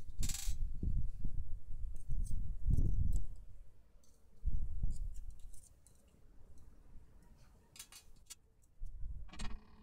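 Hands handling and fitting parts of a small metal micro compound crossbow on a tabletop: low bumps and rubbing, with scattered sharp metallic clicks and clinks of small parts, one bright clink just after the start.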